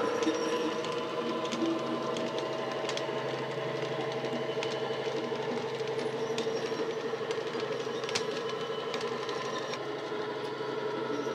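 Model Class 70 diesel's DCC sound decoder playing the diesel engine sound through a small speaker, running steadily and easing slightly in the first second. Scattered sharp clicks from the model wagons' wheels on the track run through it.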